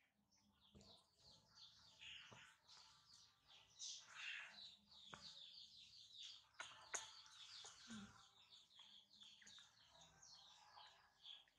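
Faint chirping of small birds, many short high chirps throughout, with a few soft knocks and rustles from handling.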